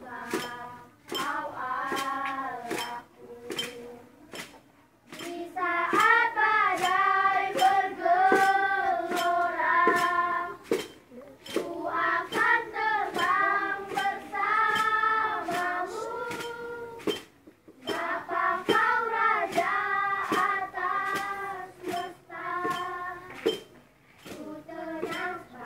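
A large group of schoolchildren singing a religious song together in unison, in phrases of a few seconds with short breaks between them, with sharp taps keeping a steady beat about twice a second.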